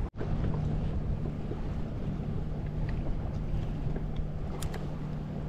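Wind blowing on the microphone aboard a fishing boat, over a steady low hum, with two faint ticks about three-quarters of the way through.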